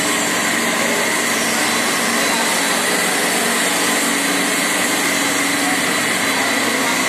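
Machinery of a plastic granule recycling line running: a loud, steady mechanical noise that does not change.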